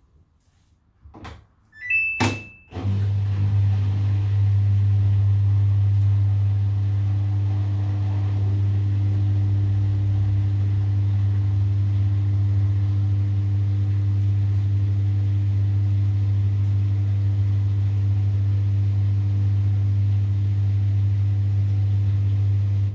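Samsung WW70T4020EE front-loading washing machine starting its drain/spin cycle: a few clicks and a short beep from the controls, then the drain pump comes on with a loud, steady low hum that holds without rising in pitch.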